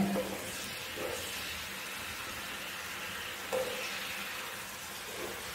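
Potato, brinjal and tomato curry simmering in a frying pan on a gas stove, a steady soft sizzle, with a steel spoon stirring it and lightly knocking against the pan a couple of times.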